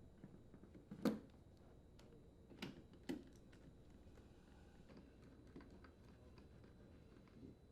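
Faint clicks and light knocks of a refrigerator's rear access panel and its screws being handled and fastened: the loudest about a second in, two more around three seconds in, then a few fainter ticks.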